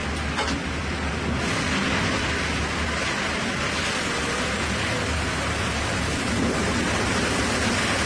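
Sawmill machinery running with a steady rushing noise over a constant low hum.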